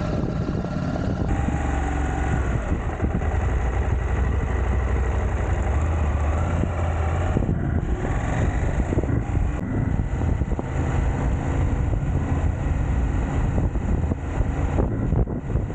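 Motorcycle engine running continuously, with a steady rush of noise over it.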